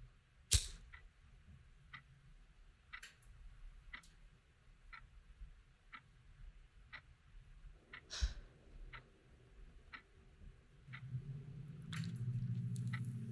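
Steady ticking about once a second, like a clock, with two louder sharp clicks, one just after the start and one about eight seconds in. A low hum swells in near the end.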